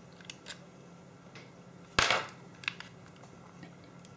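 Light clicks of small hand tools and parts being handled on an opened digital camera, with one sharp metallic clink about halfway through and a few faint taps after it.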